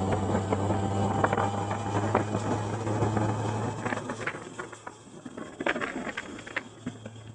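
Motorcycle engine running during a ride, a steady low hum that eases off and quietens about halfway through, with a few faint clicks over it.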